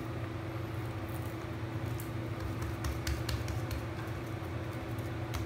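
A steady low background hum, with a few faint soft taps and ticks as hands fold and pat a sheet of puff pastry dough on a marble worktop.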